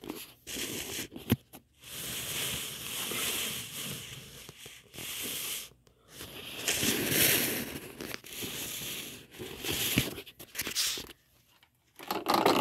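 Handling noise: uneven swells of rustling, scraping noise with scattered clicks as the wheeled rig is rolled around and the camera is held in one hand.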